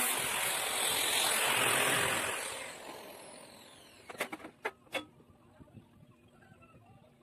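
Angle grinder cutting through a corrugated sheet-metal panel, switched off about two and a half seconds in, its whine falling as the disc spins down. This is followed by three sharp knocks as the cut-off piece of sheet is handled.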